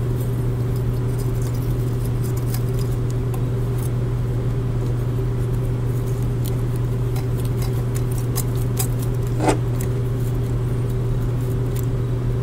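Steady low hum, with faint scattered clicks of Mathieu pliers and steel ligature wire being worked on a plastic dental model; one sharper click about nine and a half seconds in.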